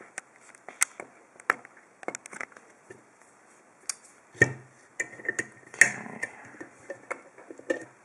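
A brass padlock being handled and clamped into a bench vise with rubber-padded jaws: scattered clicks and knocks, the loudest about four and a half seconds in, followed by a cluster of handling noises around six seconds in.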